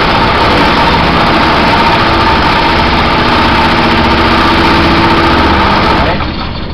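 Fixed-stroke reciprocating hammer, an old riveter converted to a power hammer, running steadily while its dies pound a bead into a sheet-steel floor pan. It makes a loud, even mechanical din that drops away sharply about six seconds in.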